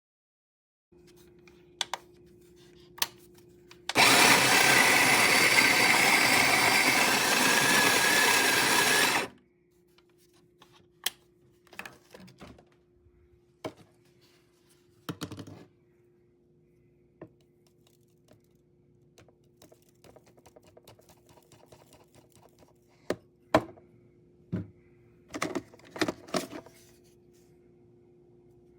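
A small appliance motor whirs loudly for about five seconds, starting and stopping abruptly. Scattered clicks and knocks and a faint steady hum fill the rest.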